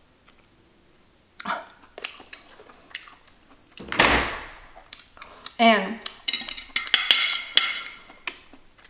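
Chopsticks, plate and a glass jar of kimchi clinking and clattering as the jar is handled, with scattered clicks from about a second and a half in and a busier clatter near the end. A loud breathy whoosh comes about four seconds in.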